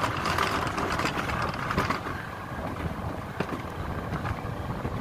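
Gravity-powered alpine mountain coaster cart running along its monorail track: a steady rumble and rattle of the wheels on the rail, with a few faint knocks.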